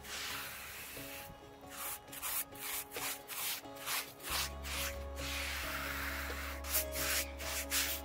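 Paintbrush strokes swishing over the larch wood of a stump, two or three a second with a pause in the middle, laying on a tinted alkyd and ebony varnish coating. Background music runs underneath, and a bass line comes in about four seconds in.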